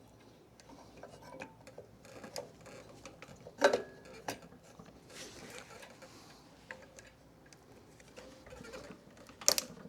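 Scattered light clicks and knocks of small mower parts being handled and fitted back together by hand, with a sharper knock a few seconds in and another near the end.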